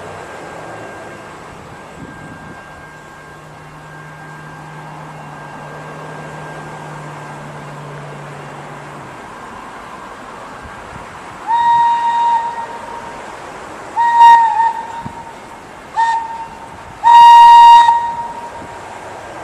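Thomas the Tank Engine locomotive sounding its whistle four times, long, long, short, long, the pattern of a grade-crossing signal, with the last blast the loudest. Under it runs the steady rumble of the approaching train.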